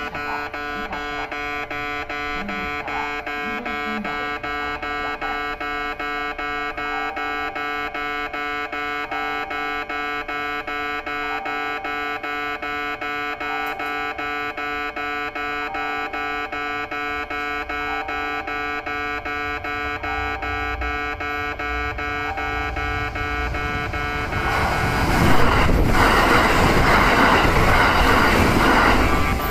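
Railway level-crossing warning bell ringing in a steady, even rhythm. About 25 seconds in, the loud noise of a Kintetsu Vista EX limited-express train passing through at speed rises over the bell.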